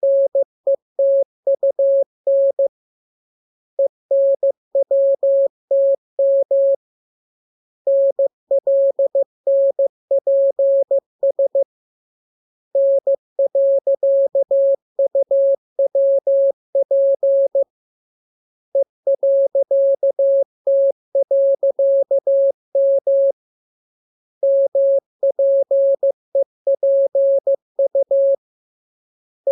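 Morse code practice sent as a single steady pure tone keyed on and off in dots and dashes, spelling the lesson's letters K, M, U, R, E, S, N, A, P, T, L, W and I. The characters come in six groups, each a few seconds long, with a pause of about a second between groups.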